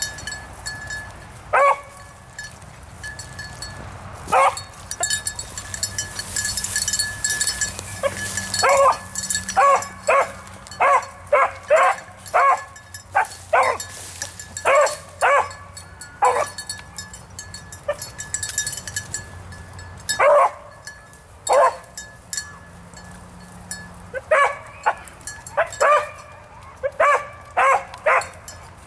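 Beagle baying on a rabbit's scent trail: short, high, ringing barks. A few come singly, then in quick runs of about two a second, and again in a cluster near the end. The hound is giving voice as it runs the rabbit.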